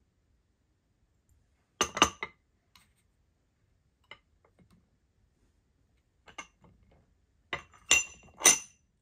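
Glass and ceramic items clinking against each other and a marble tray as they are handled and set down. There are two sharp clinks about two seconds in, a few light taps, then three louder clinks near the end as the ceramic canister is handled.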